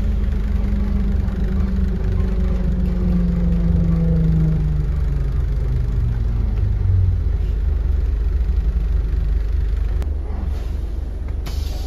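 Inside a London double-decker bus: steady low engine and road rumble, with a drive whine that falls in pitch as the bus slows for its stop.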